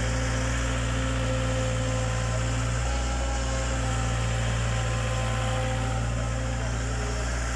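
Diesel engine of a small Kato hydraulic excavator running steadily under working load as the machine digs and swings its boom, an even low hum.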